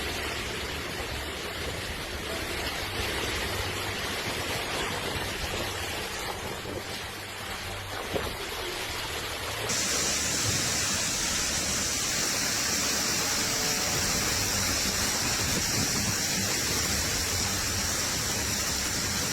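Steady, dense rushing of storm rain and running water. About halfway through it turns brighter and a little louder.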